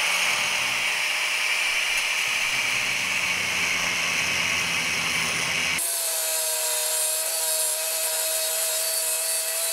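Kobalt angle grinder with a quarter-inch grinding wheel grinding into the head of a rusty steel railroad spike, a steady hissing grind. About six seconds in the sound changes abruptly: the low rumble drops away and a steady whine stands out.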